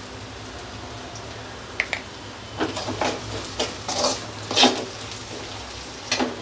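A metal spoon scraping and knocking against a metal kadai as onions, curry leaves and dried red chillies are stirred in hot oil, over a faint sizzle. A quick run of scrapes comes about halfway through, with one more near the end.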